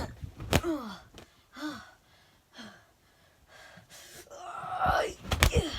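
A person voicing homemade fight sound effects: short gasps and pained cries that fall in pitch, a louder strained cry about five seconds in, and sharp smacks in between, several in quick succession near the end.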